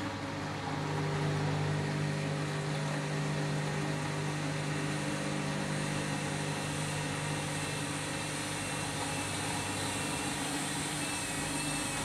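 Candy Grand'O Vita 7 kg front-loading washing machine with an overloaded drum, its motor and drain pump humming steadily as the drum turns faster toward the spin. The hum grows louder about a second in and then holds steady.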